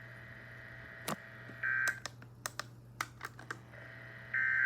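Two short buzzy bursts of Emergency Alert System digital data tones, about three seconds apart, typical of the end-of-message code that closes an alert. About a dozen sharp clicks fall between them, over a steady low hum.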